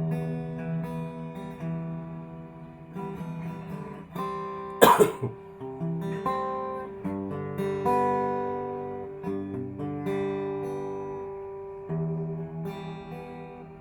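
Acoustic guitar playing an instrumental passage of a song, chords ringing and changing. There is a short, loud noise about five seconds in.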